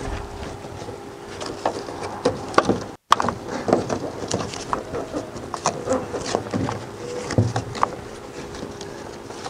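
Handling noise from a tie-down strap being pulled tight over a canoe hull: scattered clicks, taps and rustles of webbing and buckle against the boat and car roof, with a faint steady hum underneath.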